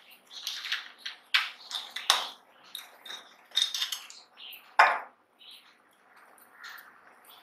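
A plastic precision screwdriver kit being opened and handled: a run of plastic clicks and clattering metal bits in the rotating bit holder, with one sharp knock about five seconds in, then only a few faint ticks.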